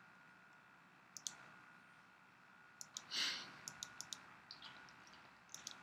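Faint computer mouse clicks, a dozen or so scattered irregularly, several in quick clusters, with one short soft rush of noise about three seconds in.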